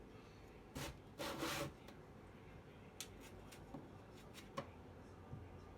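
Knife cutting and scraping a lemon: a short scrape, then a longer, louder rasping stroke about a second in, followed by a few light clicks of the knife.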